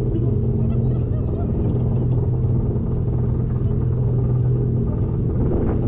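A steady motor hum holding one pitch, with faint voices in the background.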